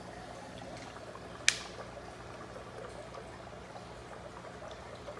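Steady bubbling and trickling of air from an aquarium sponge filter, with a faint low hum under it and one sharp click about a second and a half in.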